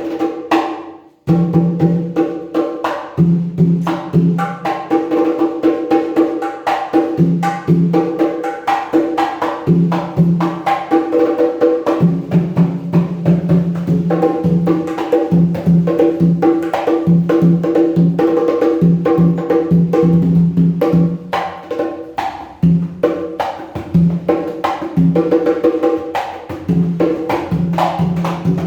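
Several conga drums played by hand in a continuous, fast rhythm, alternating between drums tuned to different pitches. The playing starts after a brief pause about a second in.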